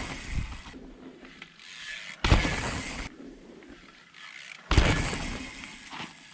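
2006 Gary Fisher PHD hardtail mountain bike landing off drops: two sudden thumps, about 2.3 s and 4.8 s in, each followed by a fading rattle of the bike, with ratchet-like clicking from the coasting rear hub between them.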